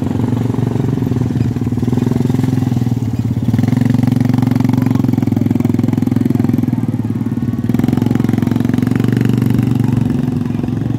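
Quad bike (ATV) engine running steadily, getting louder about a third of the way in and easing back a few seconds later.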